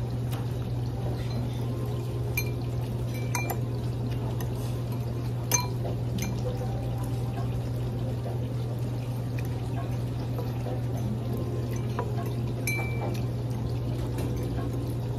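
Restaurant room tone: a steady low hum with a few sharp clinks of cutlery against dishes, the loudest about five and a half seconds in.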